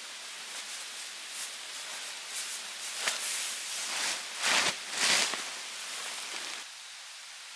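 Tarp being pulled from its stuff sack and shaken open: crinkly rustling, then two loud flaps of the sheet about four and a half and five seconds in, over the steady rush of a mountain stream.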